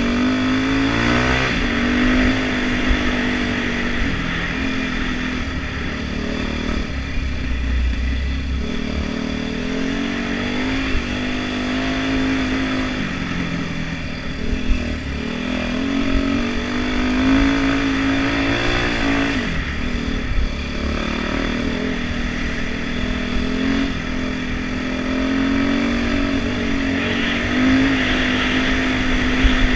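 Dirt bike engine running while riding a dirt track, its pitch rising and falling repeatedly with the throttle, with a few short sharp knocks.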